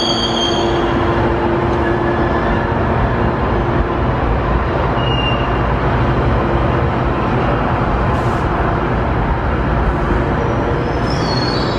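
GO Transit bilevel passenger coaches rolling past on the rails, a steady rumble of wheels on track. A high wheel squeal fades out in the first second and returns near the end.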